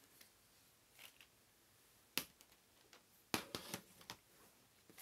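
Sharp clicks and crackles of the laptop's display cable and its adhesive tape being peeled away from the old LCD panel by hand, a single click about two seconds in and a quick cluster of them a second later.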